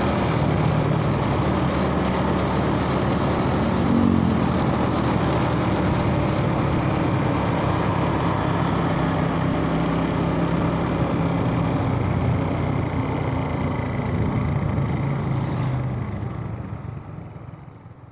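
A 2006 Suzuki Smash motorcycle's small single-cylinder four-stroke engine running steadily, with road and traffic noise around it. The sound fades out over the last two seconds.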